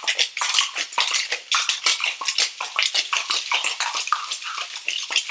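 Copper cocktail shaker shaken hard, holding a gin sour of gin, lemon juice, muddled blueberries and egg white: a fast, continuous clatter of the contents striking the shaker's walls. The shaking froths up the egg white.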